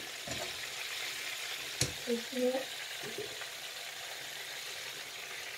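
Steady sizzling hiss of food frying in hot oil. A single sharp click comes a little under two seconds in, followed by a brief faint voice.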